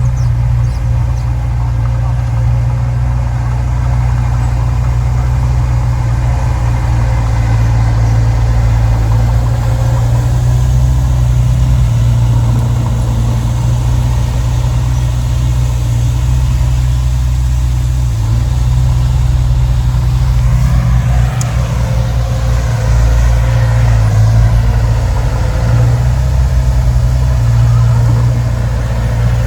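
Diesel engine of heavy earthmoving machinery running steadily with a low drone, shifting in pitch for a few seconds about two-thirds of the way through.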